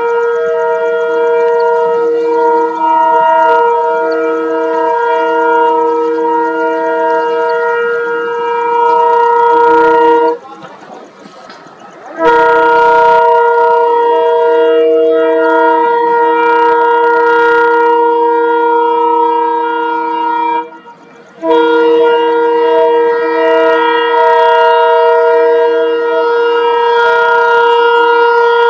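Indian diesel locomotive's horn blowing long sustained blasts, a chord of several steady notes, broken off briefly about ten seconds in and again for a moment about twenty-one seconds in.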